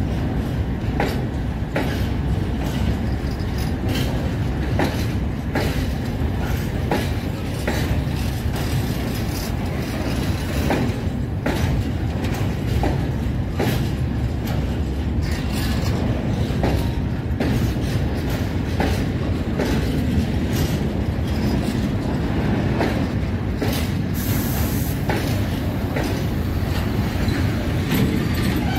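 A freight train of open coal wagons rolling past, with a steady low rumble and the wheels clicking regularly over the rail joints.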